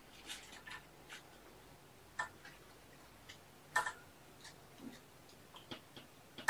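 Scattered light clicks and taps from handling camera-mounting gear and straps, with two sharper clicks about two and four seconds in.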